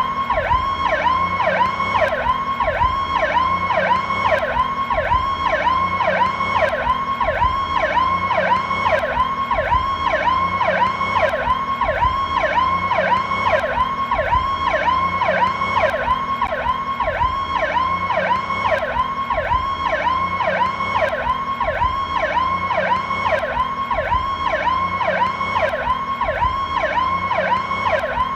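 Ambulance Powercall electronic siren sounding continuously in a fast sweeping pattern, about three pitch sweeps a second, at a steady loud level.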